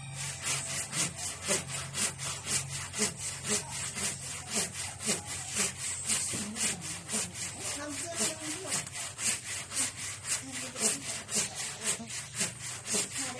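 Handsaw cutting through a wooden roof beam in steady back-and-forth strokes, about three a second.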